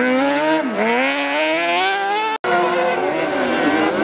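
Off-road race car engines at high revs, the pitch climbing and falling as the throttle is worked and gears are changed. The sound cuts out completely for an instant a little past halfway.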